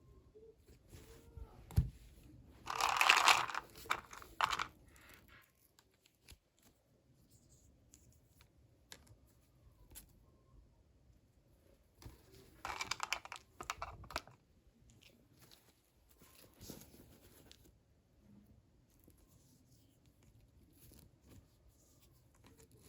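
Toy packaging being torn open and crinkled by hand, in two loud bursts about two seconds in and again about twelve seconds in, with soft handling clicks between them.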